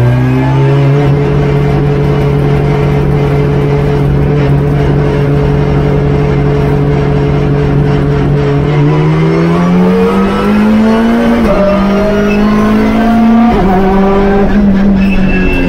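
Hyundai Veloster N TCR race car's turbocharged four-cylinder engine heard from inside the cockpit, holding steady revs for several seconds, then rising in pitch under acceleration, with two short dips in pitch near the end.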